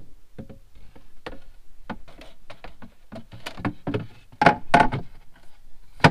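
A removable plywood shelf being handled in a cupboard and slid back into place: a series of wooden knocks and clunks against the cabinet, loudest a little after four seconds in, with a sharp knock at the end.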